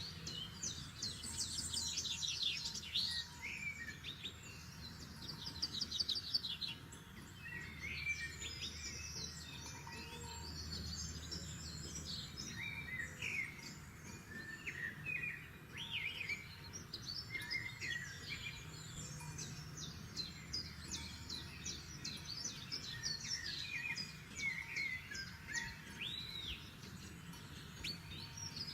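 Several forest birds singing at once, overlapping chirps, rapid trills and short whistled notes, over a faint, steady low background rumble.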